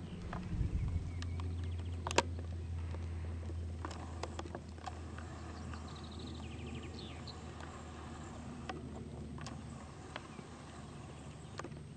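Alpine ibex horns knocking together as two males spar, a few sharp clacks with the loudest about two seconds in, over a low steady hum.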